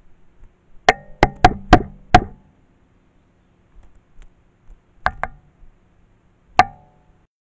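An animal knocking on a camera trap's casing right against the microphone, with a short hard ring after each strike. Five quick knocks come about a second in, two more near the middle and a single one near the end.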